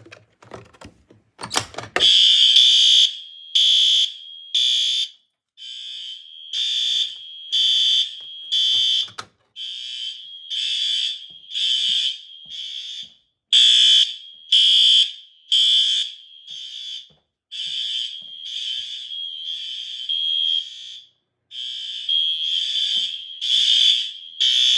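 Several electric fire alarm horns sounding in the code-3 pattern: loud, high buzzing blasts in groups of three, each group followed by a short pause, repeating. Their patterns overlap and drift out of step. The horns start about two seconds in, after a few clicks.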